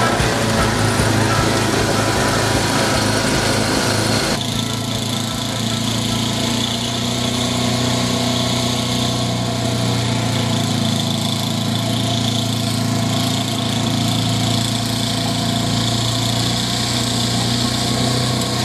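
A gas snowblower engine running steadily while the machine throws snow. About four seconds in, the sound changes abruptly: the noise above the engine drops away and the engine runs on more evenly.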